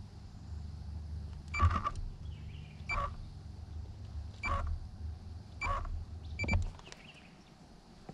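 Kayak's electric trolling motor running with a steady low hum, with five short knocks about every second and a half over it; the motor stops near the end.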